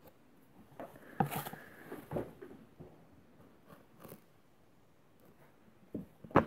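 Thin plastic bag crinkling as a crystal ball is pulled out and handled, with a few light clicks and taps. The crinkling is densest in the first couple of seconds, with a sharper click near the end.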